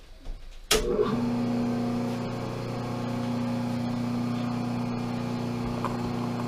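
Pratt & Whitney Model B metal lathe switched on with a click about a second in, then its motor and spindle running at a steady hum.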